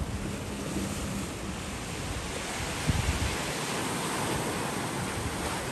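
Sea surf washing and breaking on a rocky limestone shore, a steady hiss that swells slightly midway, with wind buffeting the microphone.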